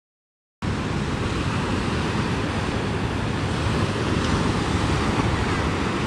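Sea surf washing on the shore, a steady rush with wind buffeting the microphone. It cuts in abruptly about half a second in, after a moment of dead silence.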